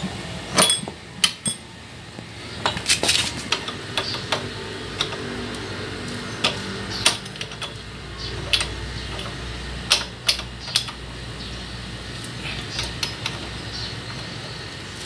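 Sharp, irregular metal clicks and clinks of a hand wrench turning on a scooter's front axle nut as a chrome axle cap cover is fitted and tightened, over a faint steady hum.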